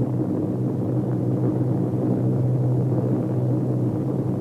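Aircraft engines droning steadily in flight: an even, low rumble that holds the same pitch and level throughout.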